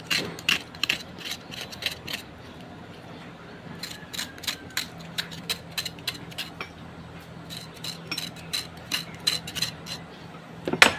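Rapid, irregular sharp clicking and tapping, like a ratcheting mechanism or metal being tapped, with a short pause about two seconds in, over a faint low steady hum.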